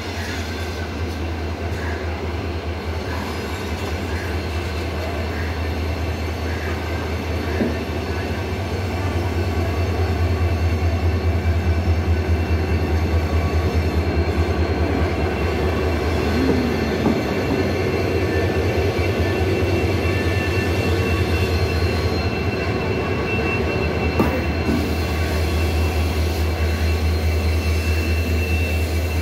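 Indian Railways WDG4D diesel locomotive running light past on a trial: its two-stroke V16 engine gives a steady low drone that swells loudest about ten seconds in, and a thin steady high whine joins in the second half.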